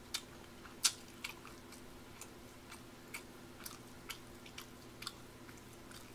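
Quiet room tone: a steady low hum under scattered faint clicks, roughly one or two a second.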